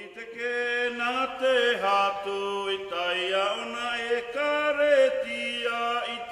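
Background music: a group of voices singing long held notes in harmony, chant-like, with no clear words.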